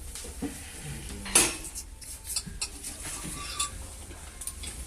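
Metal tools and parts clinking and clanking during hand disassembly work, with scattered sharp clicks and one louder clank about a second and a half in.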